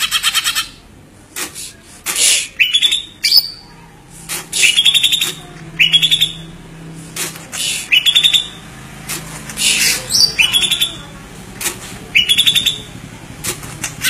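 A songbird giving a series of short, harsh chirps, about one every second or so, each note bending down in pitch.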